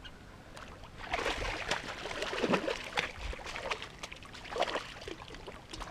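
Irregular splashing and sloshing of water as a hooked bass thrashes at the surface, with short clicks scattered through it. It starts about a second in.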